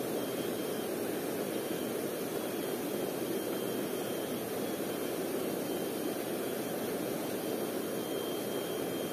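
River water rushing steadily over rocks: a constant, even rush with no breaks.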